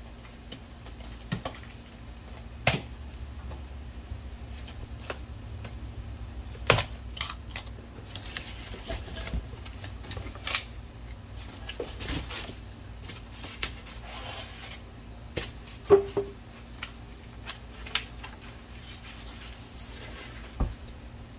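A cardboard shipping box being opened by hand: packing tape pulled off, flaps and cardboard rustling and scraping, with scattered sharp knocks and taps as the packed parts are handled.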